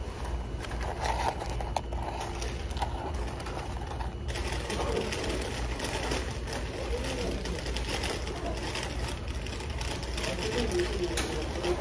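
Small rustles and crackles of a paper fry carton being handled and fries being eaten, over a steady low hum of restaurant ambience with faint voices in the background.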